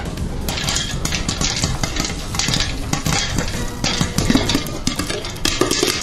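Popcorn popping: a dense, rapid crackle of many overlapping pops.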